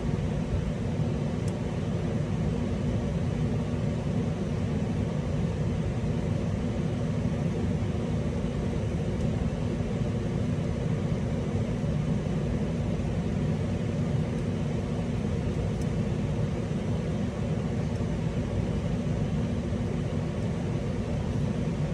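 Steady low rumbling background noise, unchanging throughout, with no separate clicks or knocks standing out.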